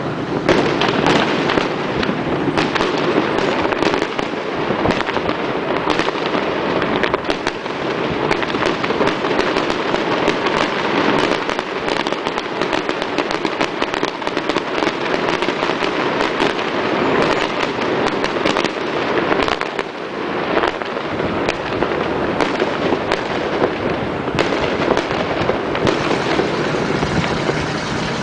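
Fireworks display going off in a dense, unbroken barrage of bangs and crackles, with many shells bursting close together. It eases slightly for a moment about two-thirds of the way through.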